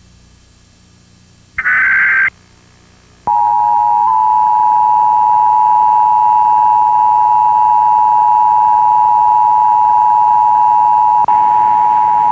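Emergency Alert System test signal: a short burst of the warbling SAME digital header data tones about a second and a half in, then about a second later the EAS attention signal starts, a loud steady two-tone alert tone (853 and 960 Hz played together) that holds without change.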